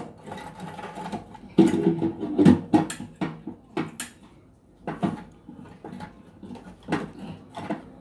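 Scattered metal clicks and knocks, densest and loudest about two seconds in, as a replacement magnetron (Panasonic 2M210-M1) is handled and seated against a microwave oven's sheet-metal chassis.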